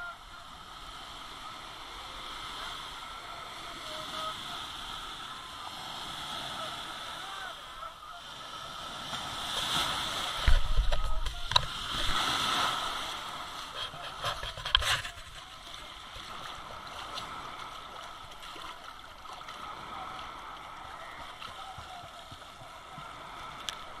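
Beach sea ambience: small waves and shallow sea water sloshing, with the voices of distant bathers. A few seconds of louder splashing and rumble come in the middle as someone wades into the water.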